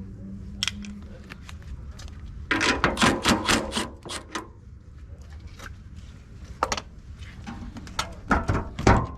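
Welder laying short welds on a car frame section: two bursts of crackling, one about two and a half seconds in lasting about two seconds and a shorter one near the end, over a steady low hum.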